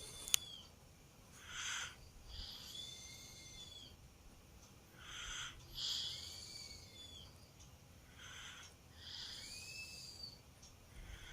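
A sleeping toddler's faint snoring: three slow breaths about three and a half seconds apart, each a short breathy rush followed by a thin, high whistling note.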